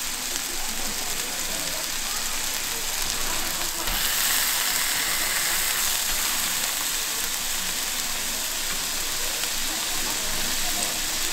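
Beef skirt steak sizzling as it cooks, a steady frying hiss. A thump about four seconds in, after which the sizzling is louder.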